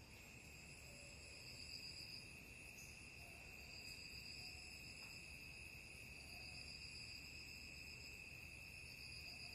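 Faint insect chorus, like crickets: a steady high shrill with a higher trill that swells and fades every couple of seconds.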